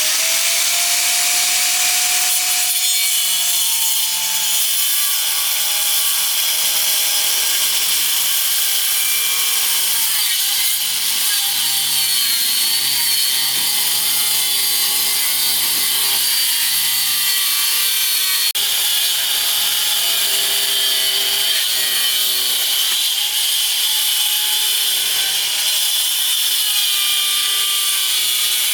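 A power saw cutting through wood, running steadily under load, with a motor pitch that wavers as the blade bites.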